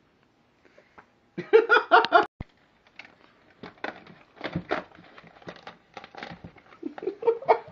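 Irregular crunching and crackling clicks with rustling: the broken pieces of a blown 10-inch Kicker EX subwoofer being handled. A short dense burst comes about two seconds in.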